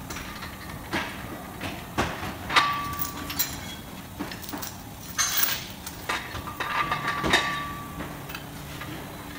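Steel chain and hook clanking and clinking against the pulling tower of a chassis-straightening bench as a pull is rigged on the damaged front apron. Several sharp metal knocks, the two loudest about two and a half and seven seconds in, each leave a brief metallic ring.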